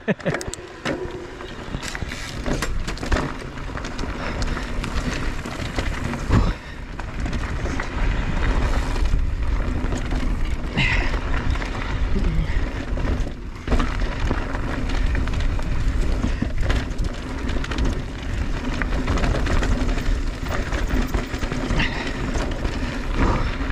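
Mondraker Crafty Carbon R electric mountain bike descending a dirt trail: steady wind buffeting the microphone with tyres rolling over dirt, and the bike rattling over bumps with occasional sharp knocks.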